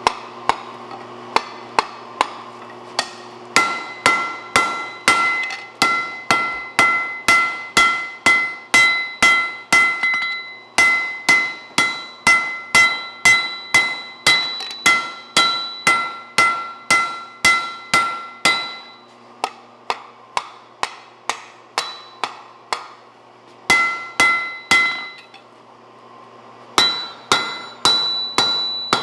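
Blacksmith's hand hammer striking hot steel on an anvil, about two blows a second, each blow ringing. The blows pause for a few seconds about two-thirds of the way in and again shortly after, then resume. A faint steady low hum runs underneath.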